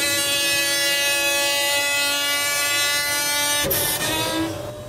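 Battery-powered electric hydraulic pump salvaged from a forklift, running under load as a steady whine while it drives the hook-lift arm to pull a roll-off bin onto the truck. The whine cuts off suddenly about three and a half seconds in.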